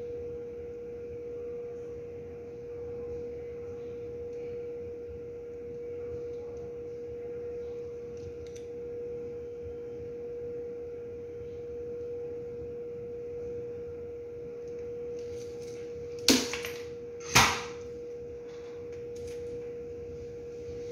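A steady hum held at one pitch throughout. Two sharp clicks about a second apart come near the end.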